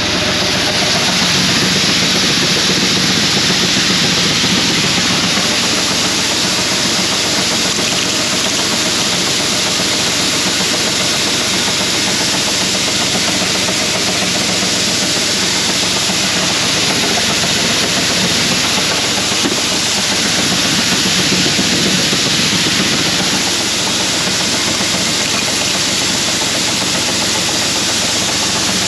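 An engine running steadily, a loud, even, unbroken noise with a low hum.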